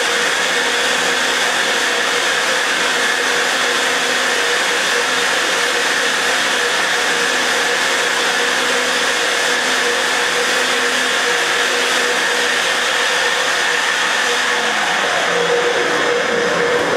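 SuperFlow flowbench motors running steadily, drawing air through a ProComp 190cc cylinder head's exhaust port during a flow test: a constant rush of air with a steady whine.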